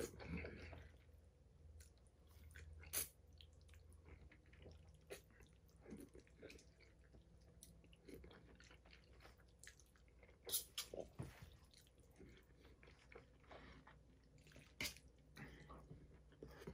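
Faint, close chewing of mouthfuls of pasta, with a few sharp clicks as a fork meets the stainless steel bowl.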